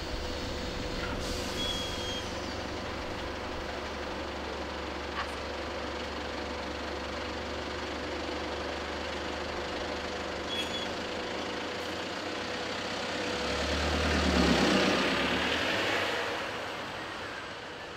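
Red double-decker bus idling at a stop with a steady engine hum, with a short high beep twice. About fourteen seconds in the engine grows louder as the bus pulls away, then fades.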